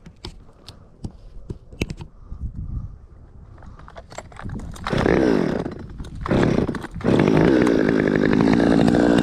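Chainsaw starting: after a few light clicks and knocks, the engine fires about five seconds in, revs and falls away, catches again briefly, and from about seven seconds runs loud and steady. It doesn't sound right: the engine is running off.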